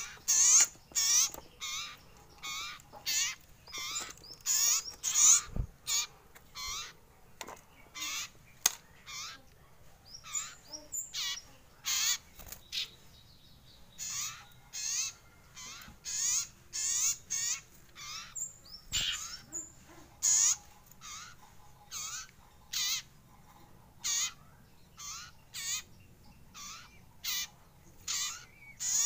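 Juvenile common iora (sirtu/cipoh), about a month old, practising its call: a long series of short, high chirps, about one or two a second, with fewer and fainter chirps for a few seconds around the middle.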